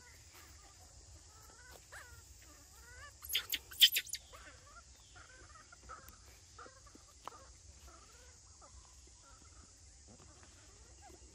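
Animal calls: scattered short chirps and squeaks, with a cluster of loud, sharp squeals about three to four seconds in, over a steady high hiss.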